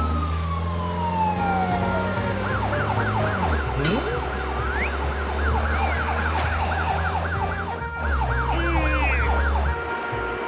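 Emergency-vehicle siren in a fast warble, about three rises a second, starting a couple of seconds in and stopping shortly before the end, over a steady low engine rumble. A long falling whistle-like tone fills the first few seconds before the siren starts.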